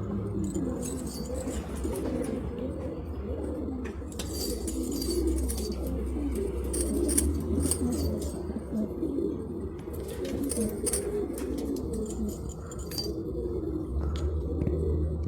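A flock of domestic pigeons cooing, many birds at once in continuous, overlapping coos.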